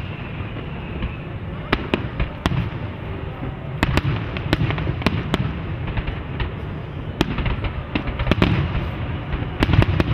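Aerial fireworks display: shells bursting in a dozen or so sharp bangs and pops at irregular intervals, over steady low background noise.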